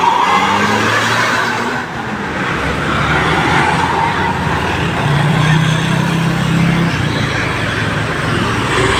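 Road traffic noise with a large vehicle's engine running. A low engine drone grows stronger for about two seconds just past the middle.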